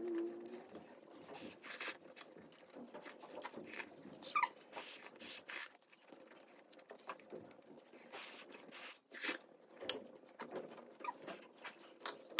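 Close-up chewing and slurping of instant noodles: wet, smacking mouth noises in quick, irregular clicks.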